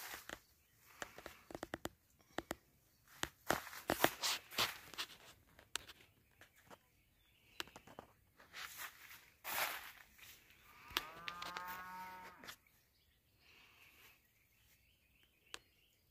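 Faint rustling and scattered clicks of handling, then one drawn-out, low-pitched call lasting about a second and a half, a little past the middle.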